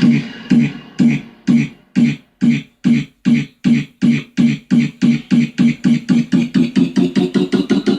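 Electronic dance-music build-up: a short chopped beat repeats faster and faster, from about two hits a second to about five.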